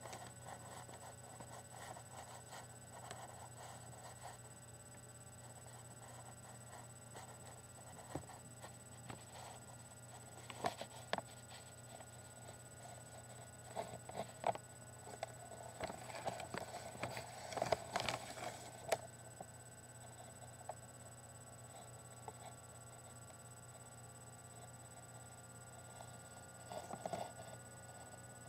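Faint rustling and soft taps from hands and sweater sleeves moving while signing, busiest in the middle and again briefly near the end, over a steady low hum and a faint high whine.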